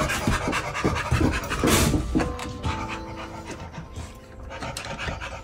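A dog panting in quick breaths, with a clutter of clicks and rattles over the first two seconds. Quieter held musical notes come in a little after two seconds and fade out in the second half.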